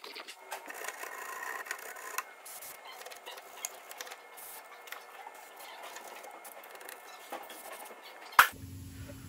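Light scraping and rubbing on rusty suspension metal, with scattered small knocks and a brief, denser stretch in the first two seconds; one sharp click near the end.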